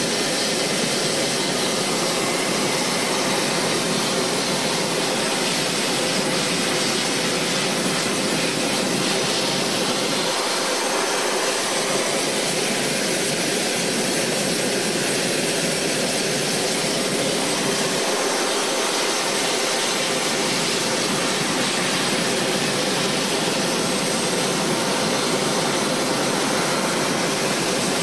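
Lockheed L-188 Electra's Allison 501 turboprop engines running steadily on the ground: a constant roar with a high turbine whine that does not change.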